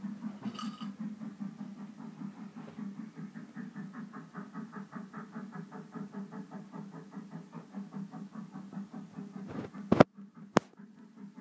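Small electric motor running with a steady low hum and a fast, even pulse. Two sharp clicks come about ten seconds in.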